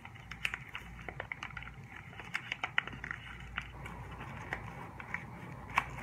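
Origami paper crinkling and rustling as hands fold and crease a paper bird, heard as irregular small crackles and clicks.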